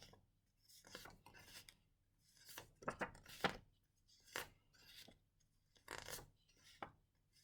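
Near silence broken by faint, scattered rustles and soft taps, the handling of a pack of paper word cards, with a small cluster of them in the middle.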